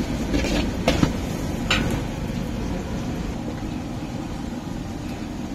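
Steady low rumble with a few sharp metal clinks in the first two seconds.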